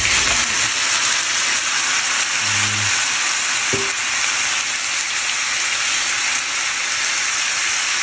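Raw pork ribs sizzling in hot oil with sautéed onion and garlic, just tipped into the pan, with a steady frying hiss. A low thud at the very start as the meat lands.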